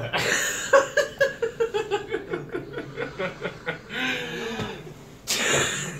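A person laughing uncontrollably in a long run of quick "ha" pulses, about five a second, slowly falling in pitch, then a sharp breath-like burst near the end.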